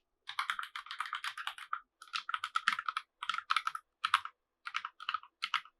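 Typing on a Keychron K1 Max low-profile mechanical keyboard with red linear switches: quick runs of keystrokes in several bursts with short pauses between them.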